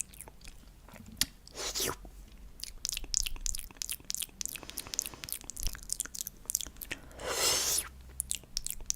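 Close-miked ASMR mouth sounds with honey: many quick sticky, wet clicks and smacks of lips and tongue, with two longer hissing swells, one about two seconds in and one near the end.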